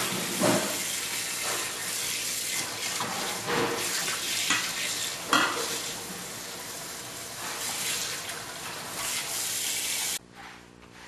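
Hot water from a kitchen tap running into a stainless steel sink and splashing over banana leaves as hands rub and unfold them, with sharper splashes now and then. The water sound stops suddenly near the end.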